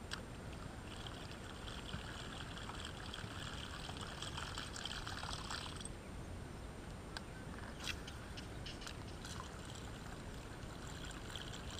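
Faint trickling and dripping water around a kayak, with a few light knocks.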